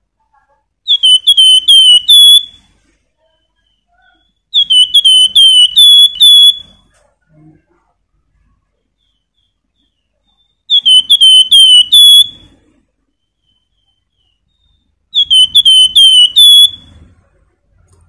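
A wergan jawa (Javan fulvetta) singing four short whistled phrases a few seconds apart, each a quick run of about five clear, high dipping notes ending on a slightly longer note.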